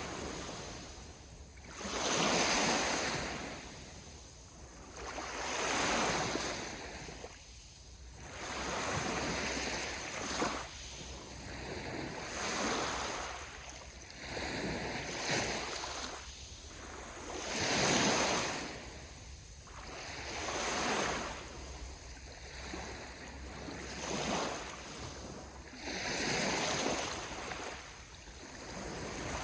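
Ocean waves washing onto the shore, the surf swelling and fading in surges about every three seconds.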